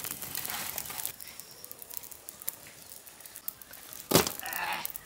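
Wood fire crackling and popping as dried fish roast directly in the flames, with one thump about four seconds in.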